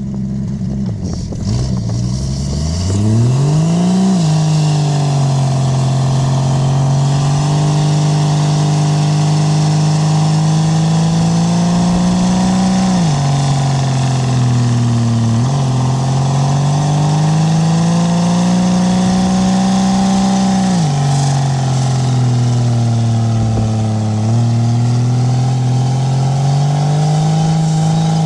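Ford XF Falcon ute's straight-six engine revving hard through a burnout, spinning the rear tyres. The revs climb over the first few seconds, then are held high, dropping off and building back up several times.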